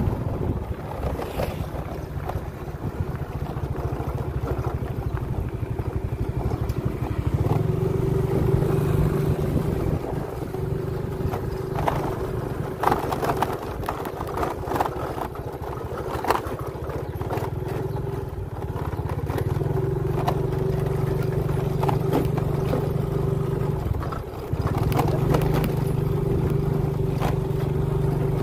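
Small step-through motorcycle engine running under way on a rough dirt road, its drone swelling and easing several times with the throttle. Scattered knocks and rattles from the bike jolting over bumps, most of them in the middle stretch.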